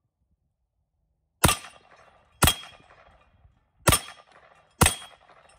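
Ruger PC9 9mm carbine firing four single shots, starting about a second and a half in and spaced roughly a second apart, each with a short echoing tail.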